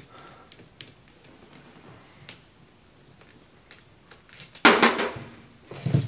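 Small clicks and metal clinks of a propane hose fitting being handled and connected at an RV furnace, with a louder brief clatter near the end.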